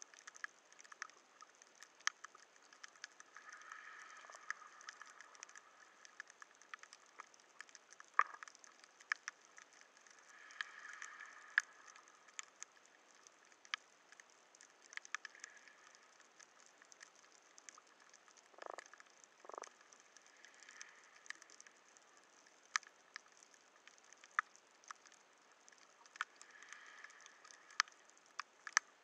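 Underwater ambience heard through a camera's waterproof housing: faint irregular sharp clicks and crackles over a low hiss, with a soft swell of hiss that rises and fades every several seconds.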